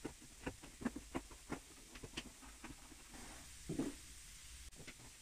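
Faint, irregular soft taps and pats as fingers push Dacron wadding down into the button holes drilled in upholstery foam.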